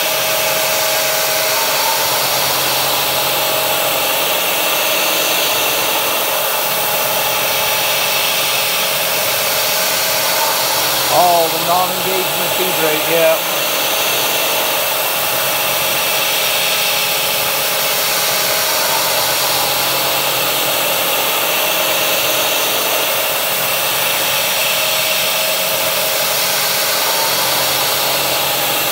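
Steady hiss of a compressed-air mist coolant sprayer over the steady hum of a CNC-converted 9x20 metal lathe running. A brief wavering squeal rises over it between about eleven and thirteen seconds in.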